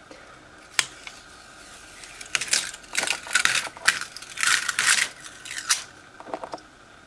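Adhesive vinyl stencil film being peeled off a painted wooden round: a run of short, sticky ripping pulls over a few seconds, after a faint click about a second in.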